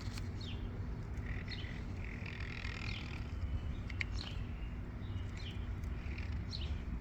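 Small birds chirping, a short falling call every second or so, over a steady low hum.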